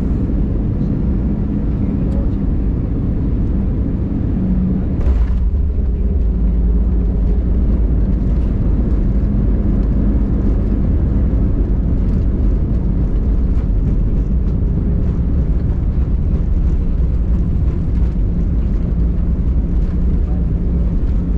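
Cabin noise inside an Airbus A320 slowing on the runway after landing: a steady low rumble of wheels and engines. About five seconds in there is a brief jolt, after which the deep rumble is a little stronger.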